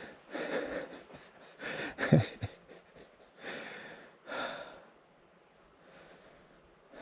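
A person breathing heavily, several audible breaths in and out, with a short sharp sound about two seconds in; it goes quiet for the last two seconds.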